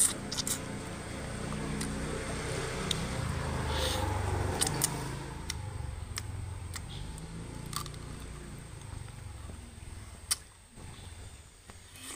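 A motor vehicle passing: a low engine rumble that swells to its loudest about four seconds in and then fades away, with scattered small clicks over it.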